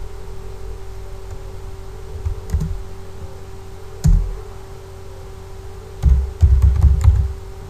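Computer keyboard being typed on: a couple of light keystrokes about two and a half seconds in, one firm key press at about four seconds, and a quick run of key presses from about six to seven seconds, as a password and a new price are entered. A steady low hum runs underneath.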